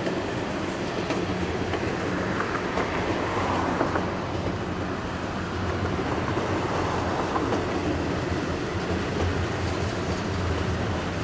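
Intermodal freight train's container well cars rolling past at a steady speed: a continuous rumble of steel wheels on rail, with a few sharp clicks scattered through it.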